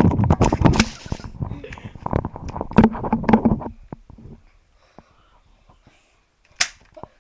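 Rustling and knocking of a handheld camera being jostled about, dense and loud for the first three and a half seconds. Then it goes faint, with a few small clicks and one short sharp sound near the end.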